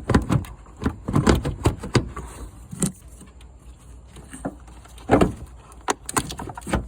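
Engine air box and intake hose being wrestled free and lifted out: a run of irregular knocks, clicks and scrapes of plastic parts, loudest near the start, about five seconds in and near the end.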